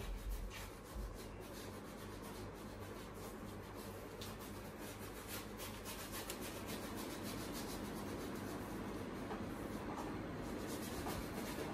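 Flat paintbrush scrubbing thick paint onto a large board, a rapid, irregular run of scratchy rubbing strokes. There are a couple of low thumps in the first second.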